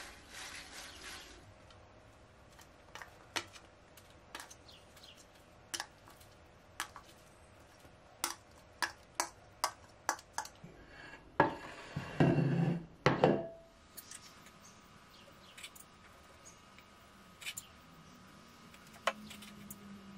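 Salad leaves rustling under the hands, then a run of light, sharp clicks and taps, and the loudest sound, a rush of about two seconds as chopped salad vegetables slide out of a glass bowl onto the leaves in a ceramic bowl.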